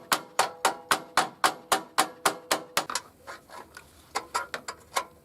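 Quick, even metallic taps, about four a second, then after a short pause a few scattered ones: hammer blows on metal against a stuck, stripped bolt on a snowblower's recoil starter housing.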